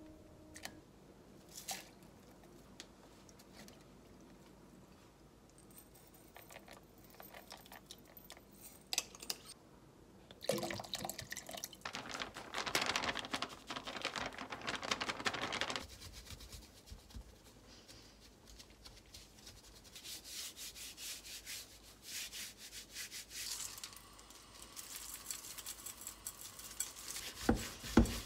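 Gloved hands scrubbing a slab of raw pork belly with flour in a plastic colander in a stainless steel sink: a run of rapid rubbing strokes, with a few louder knocks near the end. Earlier come scattered clicks of kitchen handling and a few seconds of rushing noise partway through.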